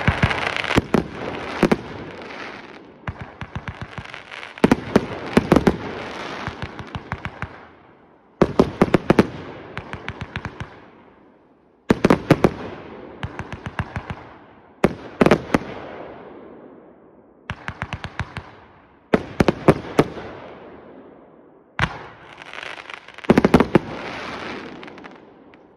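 Magic V consumer firework from Engelsrud Fyrverkeri going off in about eight volleys. Each volley opens with a quick string of sharp bangs and then tails off over a few seconds before the next one starts.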